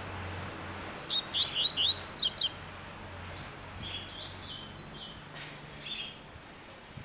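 Double-collared seedeater (coleirinho) singing: a fast run of loud, high chirps about a second in, then softer scattered notes.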